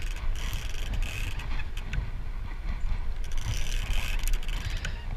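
Large big-game trolling reel working under a hooked marlin's pull, with scattered mechanical clicks, over a steady low rumble of wind and the boat's engine.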